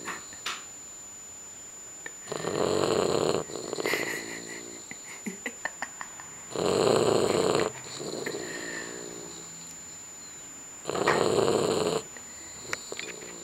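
A sleeping pet snoring: three loud snores about four seconds apart, each followed by a softer, pitched breath.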